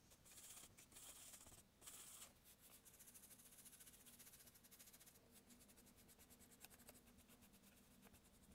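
Faint scratching of a paintbrush dragged over a canvas board while laying on acrylic paint: a few separate strokes at first, then a quick run of short rapid strokes from about three seconds in.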